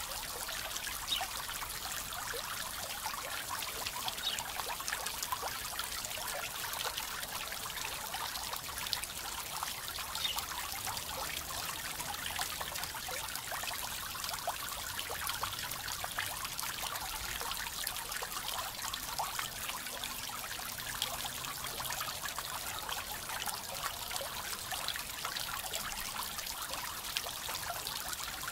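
Small garden pond fountain running: a spray jet of water falling back onto the pond surface in a steady splashing patter of droplets.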